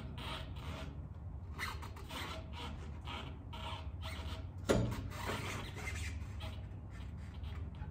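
A metal hitch-mounted bike tray being worked by hand as a bike is clamped in: a run of short scrapes and clicks, about two a second, with one sharp clack nearly five seconds in.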